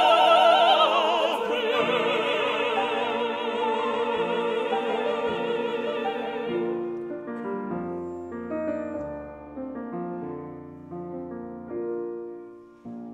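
Operatic vocal quartet of soprano, mezzo-soprano, tenor and baritone holding a loud final chord with wide vibrato over grand piano, the voices stopping about seven seconds in. The piano then plays a short closing passage of separate notes and chords alone, getting quieter, ending just before the end.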